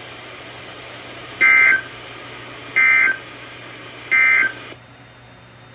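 NOAA Weather Radio SAME end-of-message signal played through an Alert Works weather radio's speaker: three short bursts of two-tone digital data about 1.4 s apart over radio hiss, marking the end of the flash flood warning broadcast. The hiss drops off near the end.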